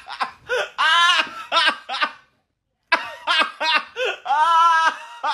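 Laughter in quick, high-pitched bursts, about three to four a second. It breaks off about two seconds in, and after half a second of silence a second run of laughter starts.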